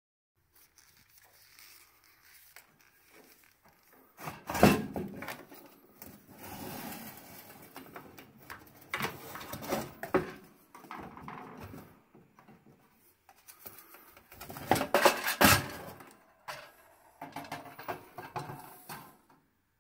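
Metal parts of a gas boiler's burner assembly knocking, clattering and scraping as they are handled and worked loose. There is a sharp knock about four and a half seconds in and a loud burst of clattering around fifteen seconds.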